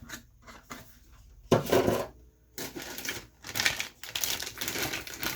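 Plastic kit packaging and parts being handled: a few light clicks, a short loud rustle about one and a half seconds in, then continuous crinkling with small clicks from about halfway through.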